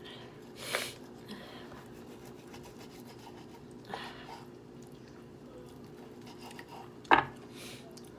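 Close-miked eating sounds of a person chewing steak, with a few short wet mouth noises over a faint steady hum. A single sharp click about seven seconds in is the loudest sound.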